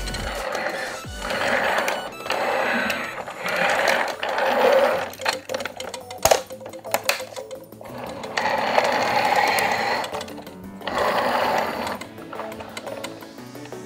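Plastic toy parts being handled: a hard plastic car-carrier case rattling and scraping in repeated stretches of about a second, with a few sharp clicks about six seconds in as its clear cover is fitted. Background music plays underneath.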